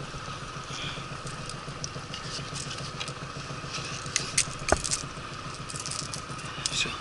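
Small rustles and clicks of hands handling and unhooking a small fish on a line, with a few sharp clicks about four to five seconds in, over a steady low mechanical hum.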